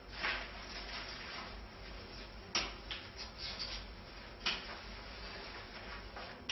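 Leafy branches rustling and brushing as they are carried and handled, with two sharp knocks, about two and a half and four and a half seconds in.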